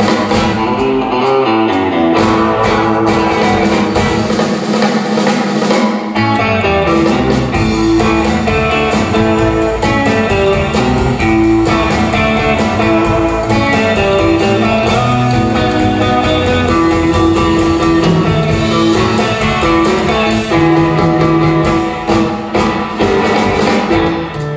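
Live instrumental rock band: several electric guitars playing a melody and rhythm over a drum kit, loud and continuous. The low end thins out about two seconds in and comes back fuller about six seconds in.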